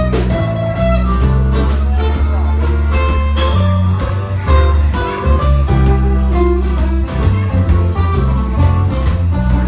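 Live band playing: strummed acoustic guitars over electric bass notes and a drum kit keeping a steady beat.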